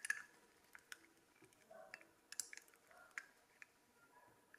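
Faint, scattered small clicks from a lock cylinder being handled and worked in the fingers, with near silence between them.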